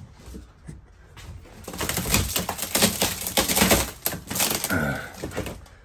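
Rapid, irregular clicking and clattering for about two and a half seconds, from tool work on the screws and wood panelling of an RV interior being torn out.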